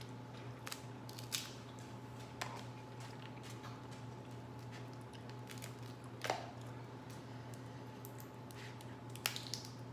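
Crab shell being cracked and snapped apart by hand, a few sharp cracks and clicks spread apart, one louder crack past the middle, over a steady low hum.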